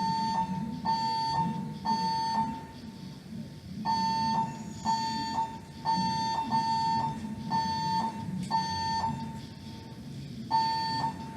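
Fire alarm evacuation tone: an electronic horn sounding a steady mid-pitched beep, on and off at about one beep a second, in groups broken by short pauses. It is the alarm signal played between the recorded voice evacuation announcements during a fire alarm test.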